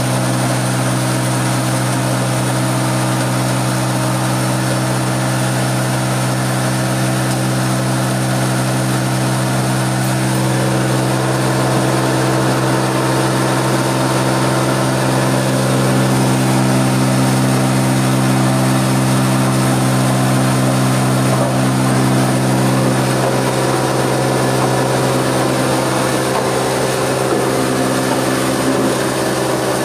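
A small hammer-mill stone crusher driven by a three-phase electric motor, running steadily. It makes a constant low hum with a noisy rushing layer over it.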